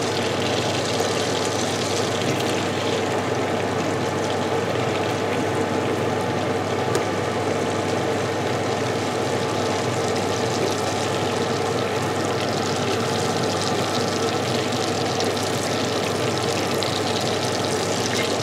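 Butter melting and sizzling in a stainless steel pot, a steady frying hiss with faint crackles, over a steady low hum.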